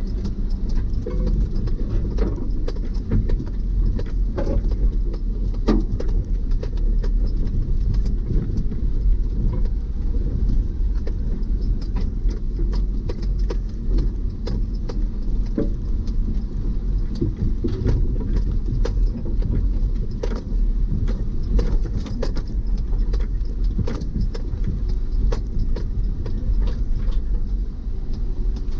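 Kei truck driving slowly over a rough, rutted forest track, heard from inside the cab: a steady low engine and road rumble with frequent knocks and rattles as the truck jolts over the uneven ground and debris.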